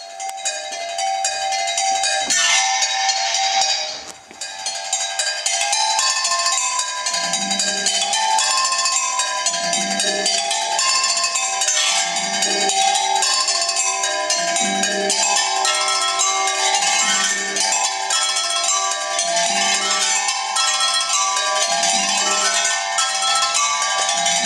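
Instrumental music with a held note under a melody of short notes; a low bass note comes in about seven seconds in and repeats every two to three seconds, with a brief dip in level about four seconds in.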